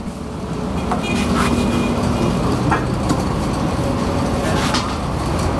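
A vehicle engine running steadily with a low rumble, with a few sharp plastic knocks and clatter as a car's front bumper cover is pulled away.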